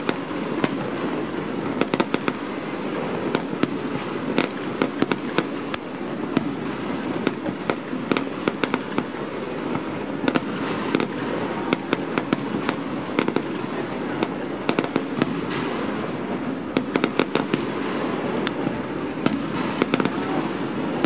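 Fireworks display: aerial shells bursting one after another, many sharp bangs and crackles in quick succession over a steady wash of noise.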